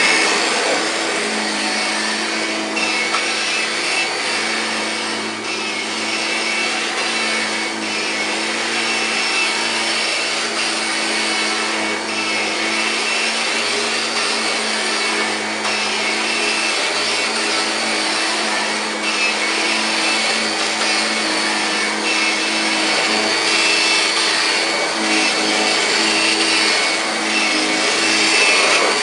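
1999 Kirby G5 upright vacuum cleaner running on carpet: a steady motor drone with a fixed-pitch hum under a rushing airflow, swelling and dipping slightly as it is pushed back and forth.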